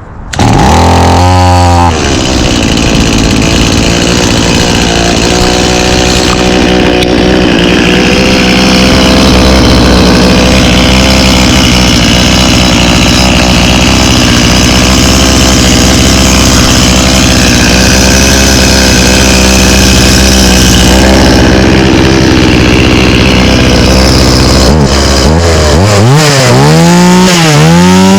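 A Stihl 018C 32cc two-stroke chainsaw engine catches at the start and runs steadily, a little boggy on old gas. In the last few seconds it is revved up and down several times in quick succession.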